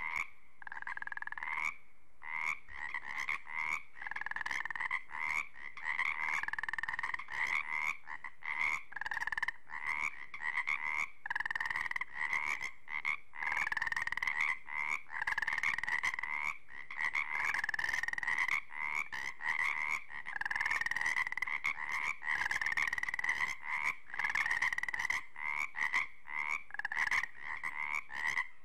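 Frogs croaking: a steady chorus of short calls repeated in quick succession and overlapping, with no pause.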